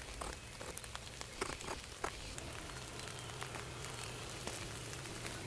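Light, scattered clicks and taps of a thin wooden drawer stopper being handled and fitted against a wooden drawer and its opening, with a faint low hum coming in about halfway.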